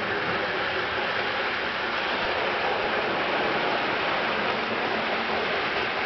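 Model trolley running along its track, heard as a steady, even rushing noise with no distinct clicks or tones.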